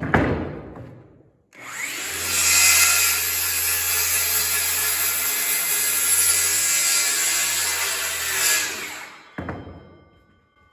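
A handheld circular saw spins up and cuts across a wooden rafter board, with a steady whine for several seconds, then winds down. A sharp knock follows just after it stops.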